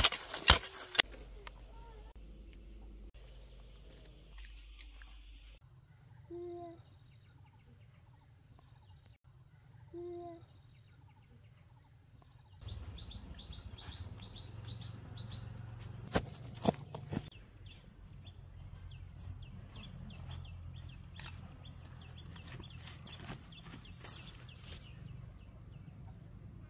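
Outdoor rural background sound. A hoe chops into soil a couple of times at the start. Faint ambience follows with two short bird calls, then from about halfway a louder bed of outdoor noise with scattered sharp clicks.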